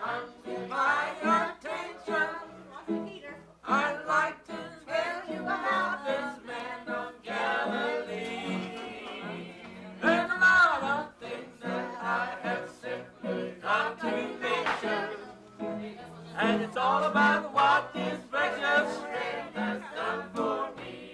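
Gospel song: singing voices with instrumental accompaniment.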